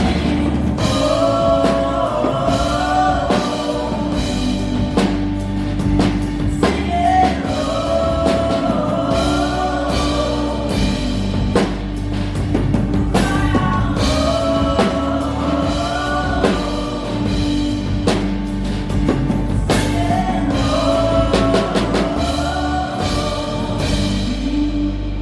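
Live worship band playing: drum kit hits over a sustained low keyboard and bass, with a melody line in repeating phrases that is sung. Near the end the drums drop out and the high end fades, leaving the sustained keys.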